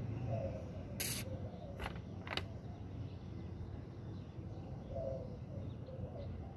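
Outdoor ambience: a steady low background rumble with three sharp clicks between one and two and a half seconds in, the first the loudest, and a few faint short calls.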